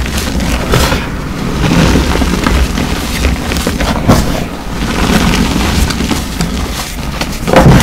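Hands crushing and crumbling blocks of reformed gym chalk in loose chalk powder: a gritty crunching full of small crackles over a deep rumble. There is a louder crunch near the end.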